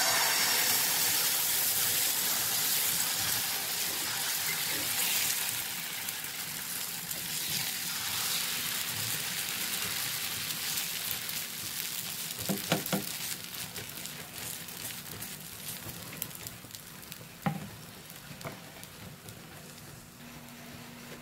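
Wheat dosa batter sizzling on a hot dosa pan as it is poured and spread into a thin crisp dosa. The sizzle starts suddenly as the batter hits the pan and slowly fades as it cooks, with a few short clicks around the middle.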